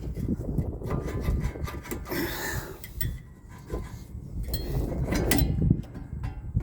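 A rear brake caliper being wiggled off: metal scraping and clinking, with a rasping scrape about two seconds in and several sharp clicks later on.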